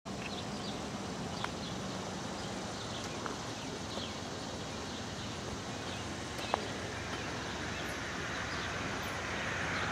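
Steady outdoor hiss with scattered faint chirps and a few sharp ticks. From about eight seconds in, a broad rumble slowly builds as an intermodal freight train led by a GE ES40DC locomotive approaches.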